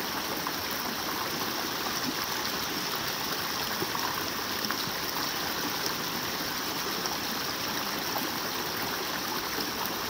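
Shallow mountain stream running over rocks and small cascades: a steady, even rush of water.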